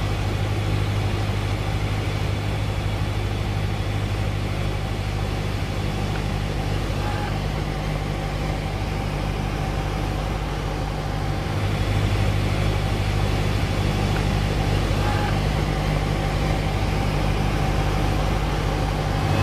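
Cessna 172's piston engine and propeller droning steadily, heard inside the cabin, with a slight rise in level about twelve seconds in.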